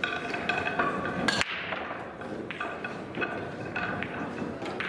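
Pool hall background with scattered clicks and knocks of billiard balls from other tables.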